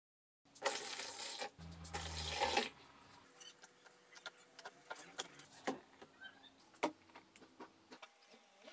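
Dry gypsum powder tipped from a cup into a plastic box of water: a loud rushing pour lasting about two seconds, then faint scattered ticks and crackles as the powder settles and soaks.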